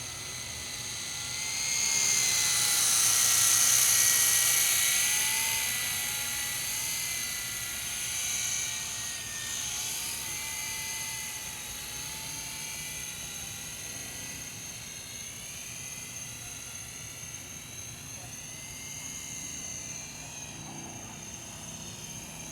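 Blade CX2 coaxial electric RC helicopter in flight: a high whine from its motors and rotors that wavers in pitch with the throttle, loudest about three to four seconds in as it passes, then fainter and steadier as it flies away.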